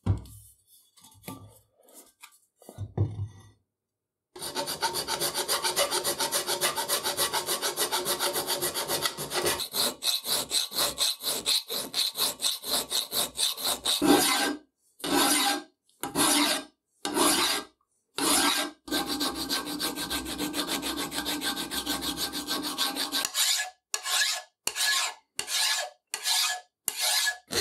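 A flat hand file scraping across the cast metal frame of a Fehlmann arbor press in quick, rhythmic back-and-forth strokes, dressing the rough casting surfaces. The filing starts about four seconds in, after a few soft knocks from handling the casting. It runs steadily for several seconds, then comes in short runs with pauses between them.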